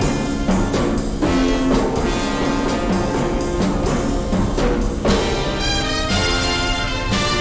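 Orchestral theme music with brass and timpani. About five seconds in it changes to long held high notes.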